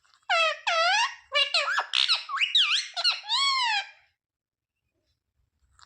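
Indian ringneck parrot giving a quick run of high, squeaky, bending notes, its chattering voice, for about three and a half seconds, then falling silent.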